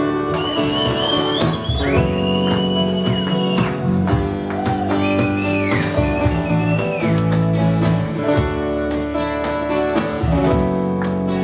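Live acoustic band playing an instrumental passage: acoustic guitars and electric bass over a cajón, with a high lead line gliding between long held notes.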